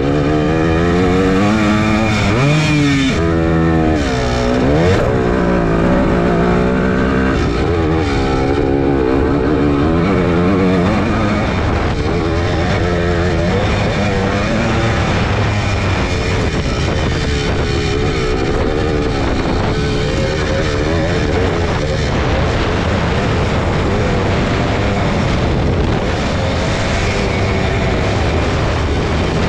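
Suzuki PE250 two-stroke single-cylinder dirt bike engine under way on a dirt track. Its revs rise and fall again and again as the throttle is opened and closed over the first dozen seconds, then hold steadier through the rest.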